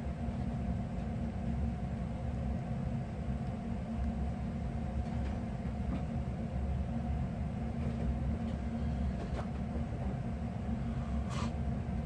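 Steady low hum and rumble with a faint steady tone above it, and one short click near the end.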